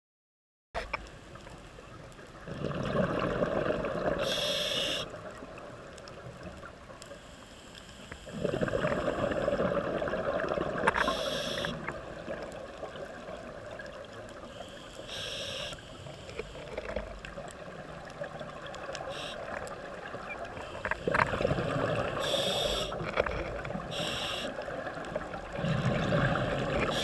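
Scuba diver breathing through a regulator underwater: several long gurgling rushes of exhaled bubbles, alternating with about five short, high hisses of inhalation.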